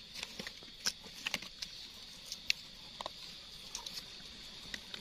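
Faint scattered crackles and clicks of dry leaf litter and a knife blade as wild mushrooms are cut and pulled from the forest floor, over a steady faint high hiss.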